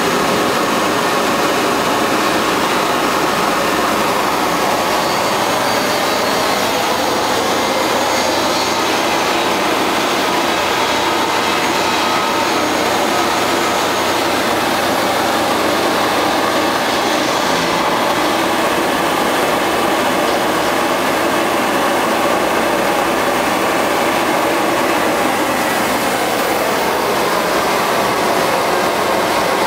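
Homemade 1-inch gas forge burner burning steadily, its flame making a continuous rushing roar with no breaks.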